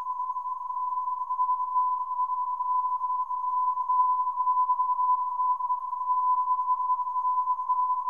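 Electronic alarm tone: a single pure beep-like tone held steady and unbroken, its loudness wavering slightly.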